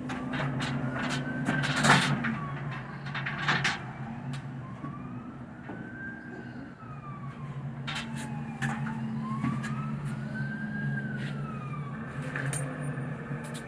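An emergency-vehicle siren in a slow wail, rising and falling about every four to five seconds, over a steady low hum. Sharp clicks and knocks come and go, the loudest about two seconds in.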